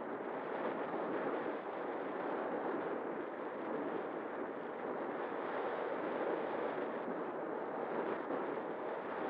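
Airflow rushing over the onboard camera's microphone as the XK A1200 RC glider flies: a steady, even wind noise with no clear pitch.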